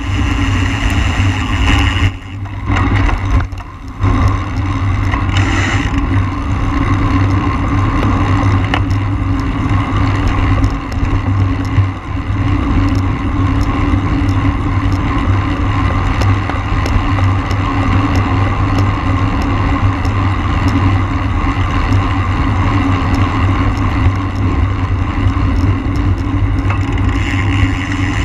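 Steady wind rushing over the microphone of a camera on a racing bicycle at speed, with a brief drop about two to four seconds in.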